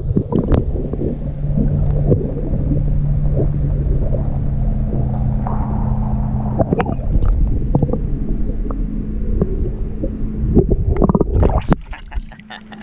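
Boat motor humming steadily, with wind rumbling on the microphone and scattered knocks. The lower hum drops away about halfway through and the rest fades near the end.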